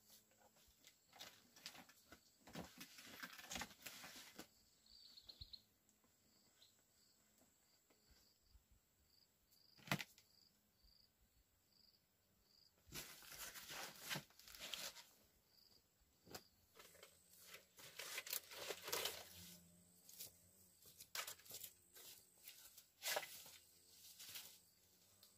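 Faint, scattered rustling and scraping, with one sharp knock about ten seconds in. A high insect chirp repeats at a steady pulse through the middle.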